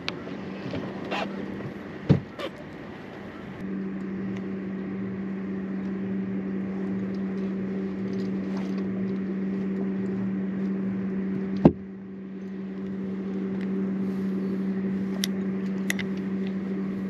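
A boat's motor humming steadily at one pitch, growing louder about four seconds in. Two sharp knocks come over it, the louder one near the twelve-second mark.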